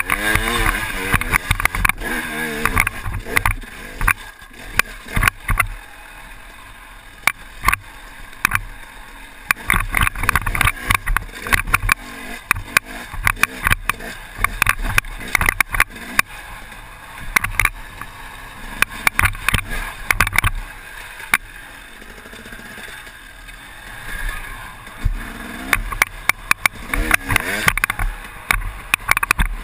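KTM 250 EXC dirt bike engine revving up and down as it is ridden over rough ground, heard from the rider's helmet, with frequent wind buffeting and knocks on the microphone.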